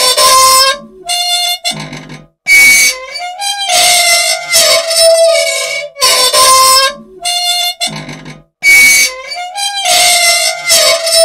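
An old, unoiled machine squealing loudly in reedy, pitched squeaks that shift in pitch, with short gaps between them. The squeals repeat in a cycle about every six seconds. The squeaking is the sign of dry moving parts that need oil.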